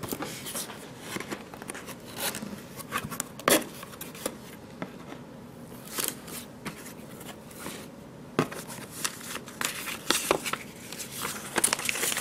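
Hands rummaging in a cardboard box of packed accessories, paper and packaging rustling with scattered light knocks and scrapes. There is a sharper knock about three and a half seconds in and another a little past eight seconds.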